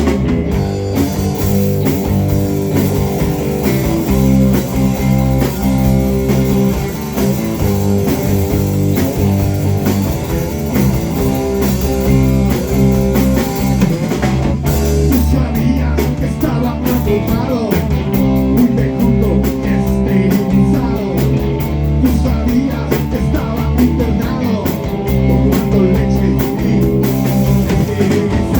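A band playing a song in rehearsal: guitars over a drum kit, coming in together at full level at the start. Cymbal strokes get busier about halfway through.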